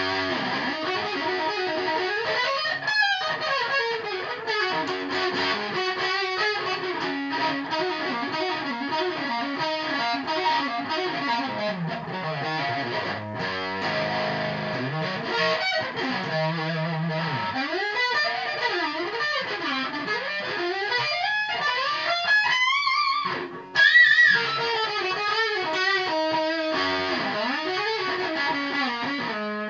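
Electric guitar played solo, running melodic lines with bent and sliding notes, as a test of the guitar's tone. It drops out briefly about 23 seconds in, then comes back with a loud note.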